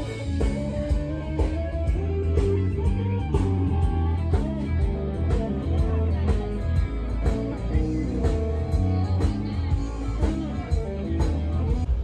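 Live band playing blues-rock style music, with a heavy bass line under plucked guitar notes.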